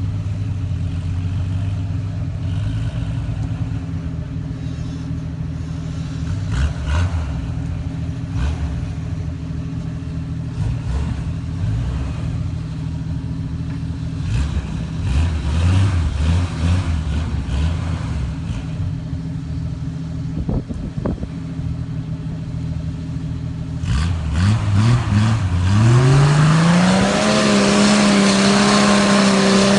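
Off-road 4x4 engine idling with occasional small blips of throttle, then revving up hard about 24 seconds in, holding high revs for a few seconds and dropping back near the end.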